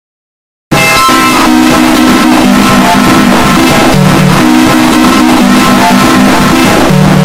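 Total silence, then under a second in loud, heavily distorted music cuts in abruptly: a run of held notes stepping between pitches, with a buzzing haze across the whole range.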